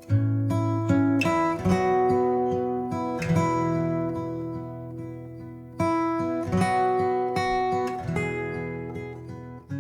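Acoustic guitar music: strummed and plucked chords, each ringing out and fading before the next.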